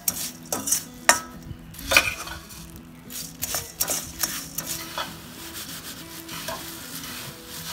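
A metal ladle scrapes and clinks against a kadhai while stirring dry puffed rice, with the rustle of the grains. The clicks thin out into a softer rustle of puffed rice being mixed by hand near the end.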